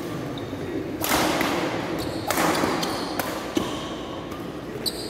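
Badminton racket strings striking a shuttlecock in a doubles rally: about five sharp hits, roughly one a second, with a few short squeaks and a steady murmur in a large echoing hall.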